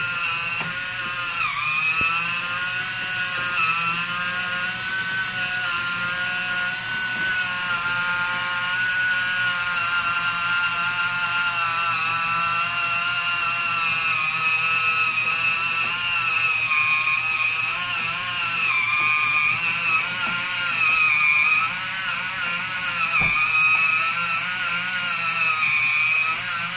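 Smart Touch battery-powered automatic can opener running on top of a can, its small electric motor making a steady whine that wavers slightly in pitch as it works its way around the lid.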